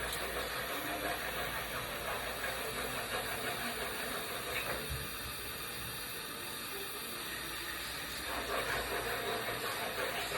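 Welding in progress: a steady hiss.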